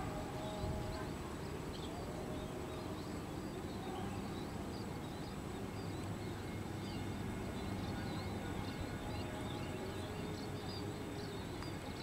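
Distant drone of the ATR 72-600's Pratt & Whitney PW127M turboprops at takeoff power, a steady hum with a few held tones that slowly shift in pitch as the aircraft rolls and lifts off. High-pitched chirping runs throughout.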